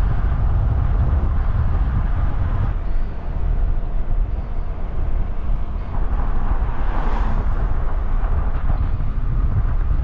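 A car driving along a highway: steady road and wind noise with a deep low rumble, swelling briefly about two-thirds of the way through.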